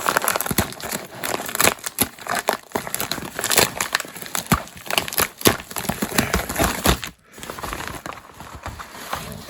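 A packaging bag being opened and rummaged through by hand, with dense, irregular crinkling and rustling that thins out about seven seconds in.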